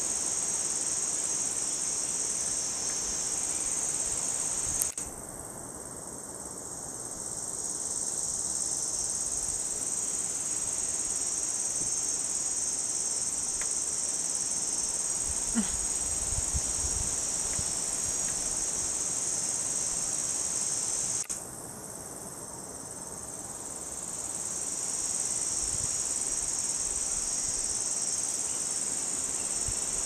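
Steady high-pitched drone of a forest insect chorus. The din drops back suddenly twice and swells up again over a few seconds.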